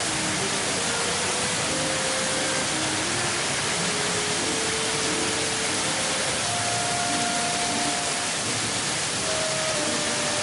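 Heavy rain pouring down onto paving, a loud, steady hiss that starts suddenly, with soft background music of held notes underneath.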